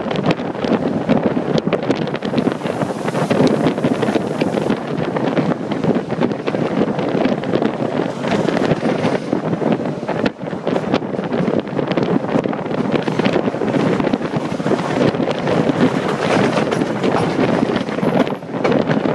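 Wind buffeting a microphone held out of the window of a moving train, over the steady running noise of the train on the rails.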